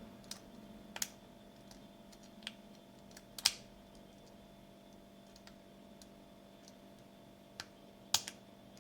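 Small metallic clicks and ticks of a lock pick working the pin tumblers of a five-pin Master Lock 2250D padlock: a few sharp clicks spread out, the loudest about three and a half seconds in, with fainter ticks between.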